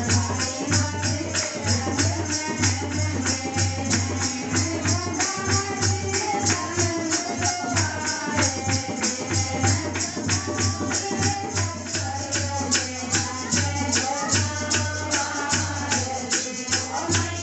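Hindu devotional kirtan: a woman sings a bhajan to Mata ji into a microphone over jingling percussion that keeps a steady fast beat.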